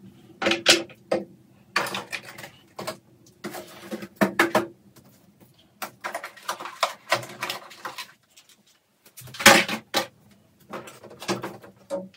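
Skincare bottles and jars being lifted off glass cabinet shelves and set down: a run of irregular clicks and knocks, the loudest about nine and a half seconds in.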